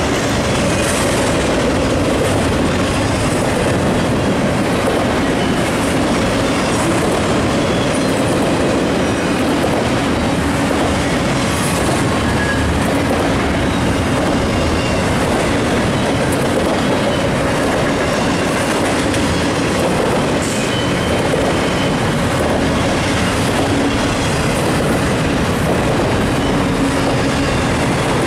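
CN intermodal double-stack freight train's loaded well cars rolling past close by: a steady, loud rolling noise of steel wheels on rail.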